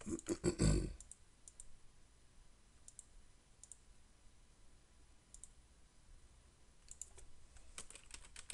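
Computer mouse and keyboard clicks. A dense, loud run of clicks comes in the first second, then single mouse clicks every second or so, and near the end quick keyboard typing starts.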